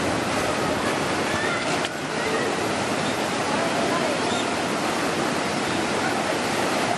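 Tsunami floodwater surging inland: a loud, steady rush of churning water.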